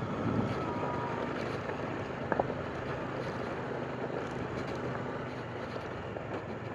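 Motorcycle running along a mountain road, with wind rushing over the microphone, and a single faint knock partway through.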